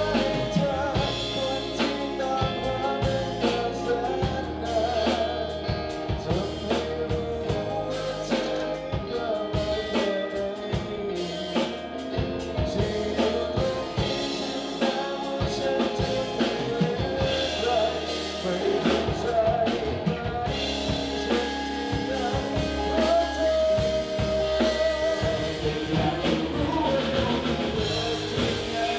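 Live rock band playing: a male singer with electric guitar, bass guitar and a drum kit.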